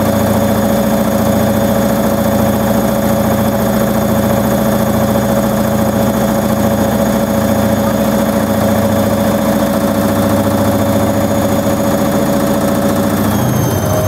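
Hoover Logic washing machine spinning steadily at about 800 rpm: a steady motor whine over a low hum from the drum that swells and fades about once a second. Right at the end the pitch starts to shift as the spin begins ramping up toward 1300 rpm.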